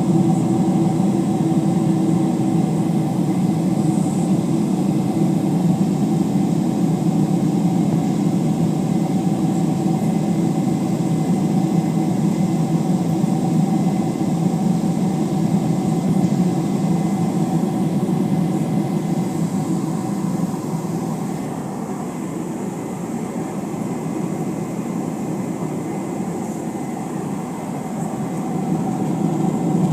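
Jet airliner cabin noise in flight: the steady drone of the engines and rushing air, with a couple of steady hum tones. It eases off a little for several seconds near the end, then comes back up.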